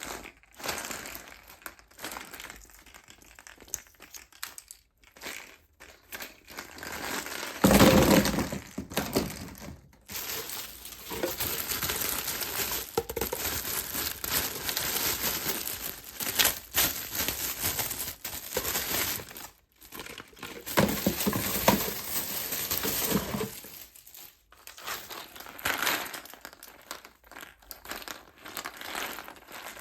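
Plastic and foil wrappers of surprise eggs and candy packs crinkling and tearing as they are unwrapped by hand, in irregular bursts. A sharp loud crackle comes about eight seconds in, followed by long stretches of dense crinkling.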